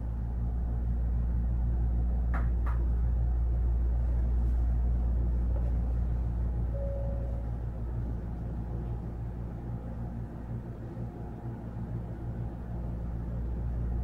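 Onboard running noise of a Hankyu 1300 series electric commuter train: a steady deep rumble with a constant hum over it, growing louder over the first few seconds. Two sharp clicks close together a little over two seconds in.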